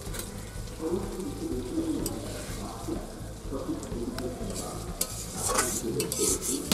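A metal spatula stirs and scrapes in a wok of simmering curry while the curry bubbles and sizzles. A few sharper scrapes come near the end.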